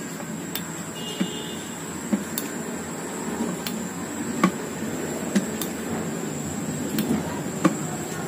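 A pointed hand tool pushed again and again through the bottom of a used paint bucket to make drainage holes, giving about ten sharp clicks at uneven intervals over a steady background hum.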